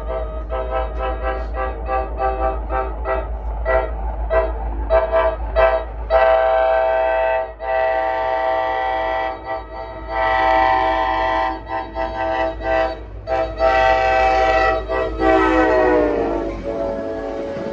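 NJ Transit commuter train's air horn sounding a sequence of long blasts for a grade crossing, the last one dropping in pitch as the train passes close by. Underneath, the crossing signal bell rings steadily.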